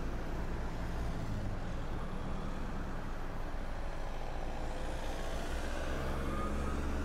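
Steady low rumble of heavy vehicle engines, like trucks idling in traffic, with a few faint higher tones near the end.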